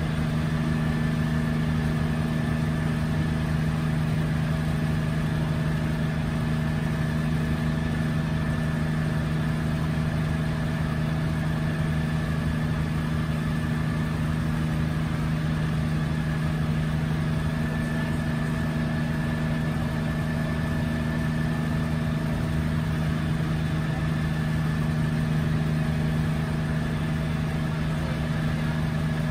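A 1962 Hiller UH-12E helicopter in flight, heard from inside its cabin: the Lycoming VO-540 piston engine and rotors make a steady drone with several held tones.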